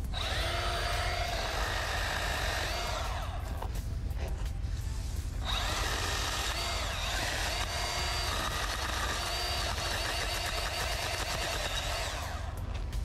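Milwaukee M12 Fuel Hatchet battery-powered pruning chainsaw with a six-inch bar, running and cutting through branches. The motor whine starts, winds down after about three seconds, then runs again from about five seconds in until it winds down near the end.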